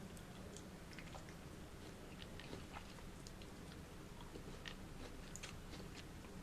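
Close-miked chewing of fresh fruit: scattered small clicks and crunches over a steady low hum.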